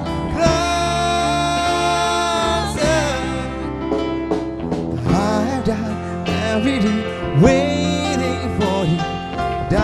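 Music with a singing voice over instruments, playing steadily.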